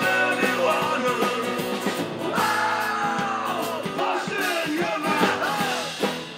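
Live rock band playing: a man singing over acoustic guitar, bass guitar and drums.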